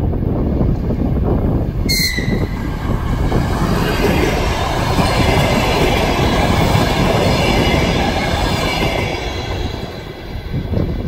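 DR1Am diesel multiple unit passing close by at speed: a loud rumble of engine and wheels on the rails. About two seconds in there is a brief sharp high tone, followed by a high ringing wheel squeal as the cars go by. The sound dies away near the end.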